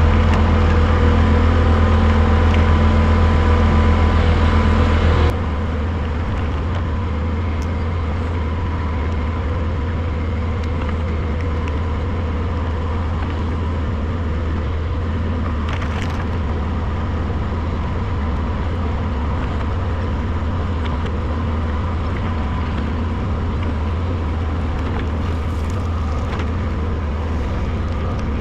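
Diesel engine of a heavy earthmoving machine running steadily. About five seconds in, the sound drops abruptly to a quieter, steady drone that continues unchanged.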